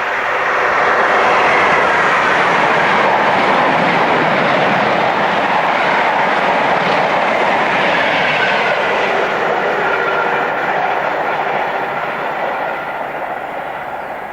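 Electric-hauled express train passing at speed on the West Coast Main Line, its wheels clattering over the rail joints. The sound swells at the start, holds loud with a whine that drops in pitch about two-thirds of the way through, then fades near the end.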